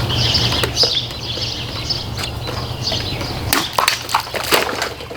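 A large folding knife's blade cutting plastic bottles: a few sharp cracks and crunches, clustered in the second half, over a steady low hum and high chirping in the background.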